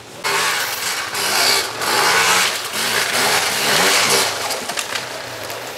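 Off-road dirt bike engine revving hard close by, its pitch rising and falling again and again with the throttle. It comes in sharply just after the start and eases off after about four seconds.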